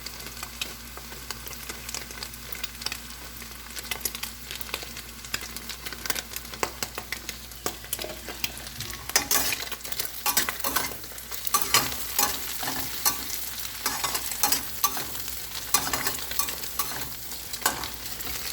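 Chopped vegetables, egg and small shrimp sizzling in a little oil in a pot while a utensil stirs them. The stirring turns into louder, faster scraping and knocking against the pot about halfway through.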